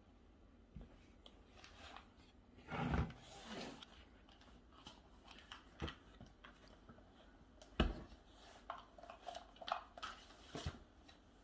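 Small plastic objects, a baby-food pouch and a snack cup, handled and tapped on a table: scattered light clicks and taps, a longer rustling thump about three seconds in and a sharp knock near eight seconds in.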